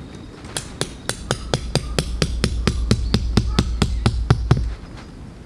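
A tent peg being hammered into the ground: a fast, even run of ringing strikes, about six a second, that stops about four and a half seconds in.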